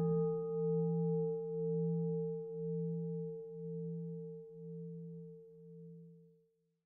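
A struck bowl bell (singing bowl) hit once and left to ring: a bright attack, then a low hum that wavers about once a second under clearer higher tones, fading away over about six seconds.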